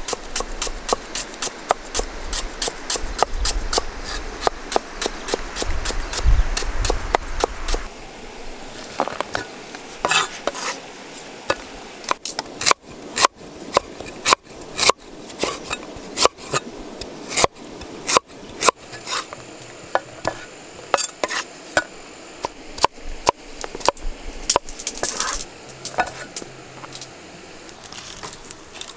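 Cleaver chopping on a wooden chopping board: a quick, even run of light strokes, about five a second, then from about eight seconds in slower, louder single chops.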